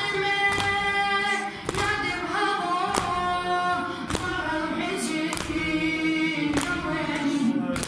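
Unaccompanied chanting of a Shia mourning lament in the shur style, a drawn-out, sustained melody. It is punctuated by evenly spaced thumps about every 1.2 seconds, the mourners beating their chests in time.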